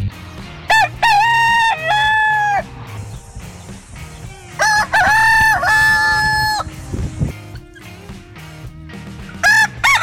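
Rooster crowing cock-a-doodle-doo: two full crows about four seconds apart, and a third beginning near the end.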